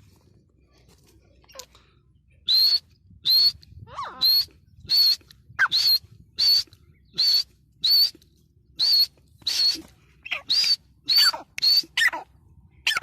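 Female grey francolin calling: after a short pause, a steady run of about fourteen short, shrill whistled notes, roughly one every three-quarters of a second, the later ones ending in a lower falling slur.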